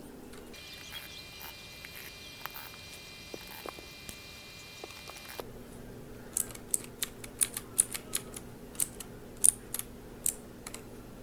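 Keys of a mechanical keyboard being pressed: a few faint taps, then from about halfway a run of separate sharp clacks at an uneven pace. A faint steady high hum runs under the first half.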